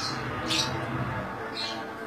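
Lovebirds giving three short, high-pitched chirps, each sliding down in pitch: one at the start, the loudest about half a second in, and another near the end.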